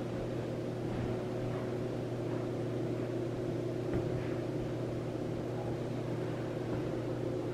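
A steady low mechanical hum, with a faint knock about four seconds in.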